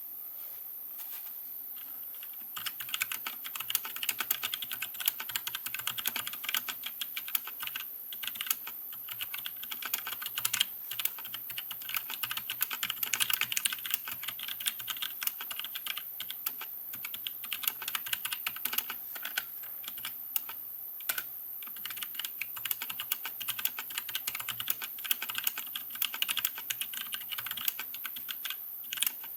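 Continuous fast typing on a mechanical keyboard with Gateron Blue switches modded into 'Jailhouse Blues': rubber spacers lock the click jacket, so the keys give no click and bottom out softer and quieter. The typing starts about a second in.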